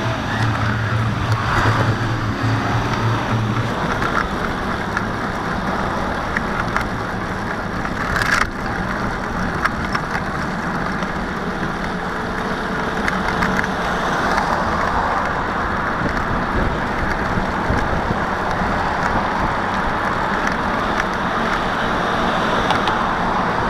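Road traffic noise and wind rushing over a bicycle-mounted camera while riding along a city road. For the first few seconds a Hino truck's diesel engine runs with a steady low hum close behind.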